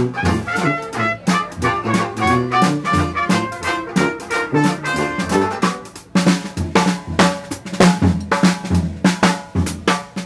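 Dixieland jazz band playing live: trumpet, tuba and banjo over a drum kit, with the snare, bass drum and cymbal hits prominent.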